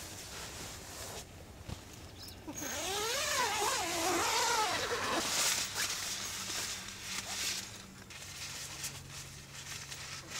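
A tent door's zip being pulled open about two and a half seconds in: a rasp lasting a few seconds whose pitch rises and falls with the speed of the pull, followed by quieter rustling of the door fabric as it is rolled back.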